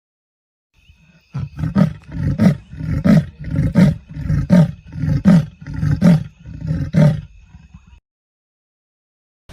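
A large animal giving a series of about nine deep, rhythmic grunts, roughly two-thirds of a second apart, starting about a second in.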